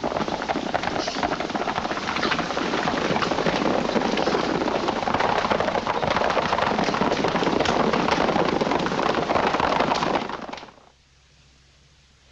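Horses galloping on a dirt trail: a dense, continuous run of hoofbeats that cuts off sharply near the end, leaving only the faint hiss of the old soundtrack.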